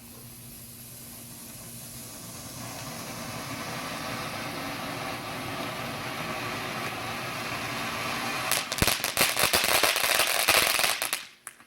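Small cone fountain firework burning with a hiss that grows steadily louder, then crackling with rapid pops for its last few seconds before it cuts out suddenly.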